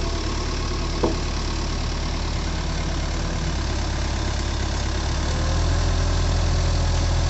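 Diesel engine of a crawler excavator running steadily while its boom presses a long post down into the canal bank, getting louder about five and a half seconds in. A single short, sharp knock about a second in.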